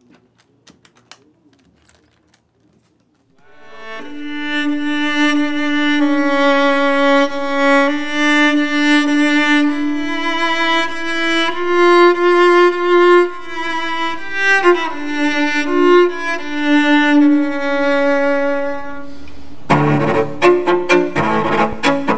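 Solo cello played with the bow: a slow melody of long held notes begins a few seconds in and gives way to quicker, more rhythmic bowing near the end. Before the playing there are a few faint clicks from the metal latches of the hard cello case being opened.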